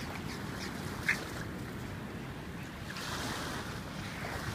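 Small waves washing onto a sandy shore, with wind buffeting the microphone. About a second in there is one short, high squeak.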